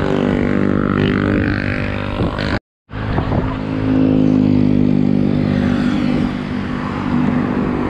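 Steady drone of a motor vehicle engine running close by, over low road and wind rumble. The sound drops out completely for a moment about two and a half seconds in.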